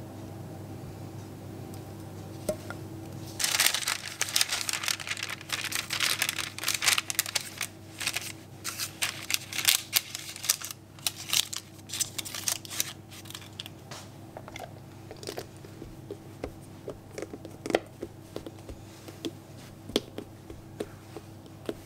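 Baking paper crinkling and rustling as it is torn and pressed down by hand onto a filled glass dish. This is followed by a series of small clicks and taps as a plastic lid is fitted onto the glass container.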